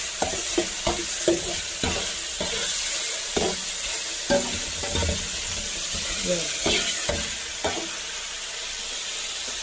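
Chicken pieces sizzling in hot oil in a wide metal paella pan, with a wire skimmer scraping and clicking against the pan bottom in short irregular strokes as the pieces are searched and turned.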